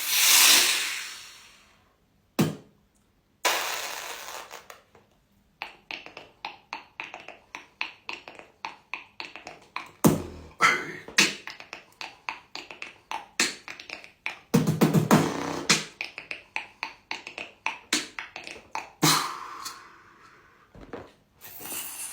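Vocal percussion in the manner of beatboxing. It opens with a loud hissing swell and a single sharp click. Then comes a long run of quick, uneven mouth clicks and pops, with another hissing stretch near the end.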